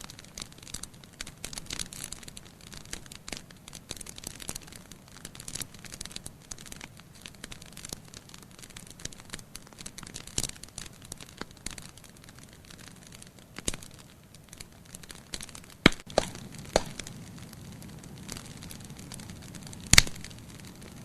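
Wood fire burning in a fireplace, logs crackling steadily with a dense patter of small crackles and a few sharp louder pops in the second half, the loudest near the end.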